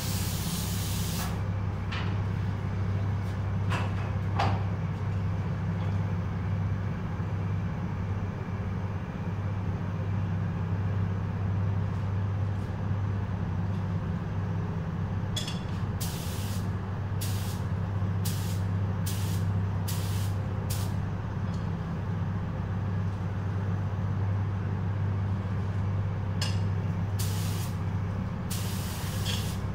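Spray booth ventilation running with a steady low hum. A hiss of compressed air cuts off just after the start, and from about halfway on comes a string of about a dozen short air hisses, each about half a second, typical of a spray gun being triggered.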